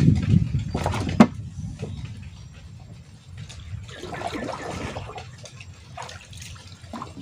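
A wooden paddle dipping and drawing through river water beside a small wooden boat, with a swishing splash about four seconds in and lighter ones after. Before that, a low rumble dies away and two sharp knocks sound about a second in.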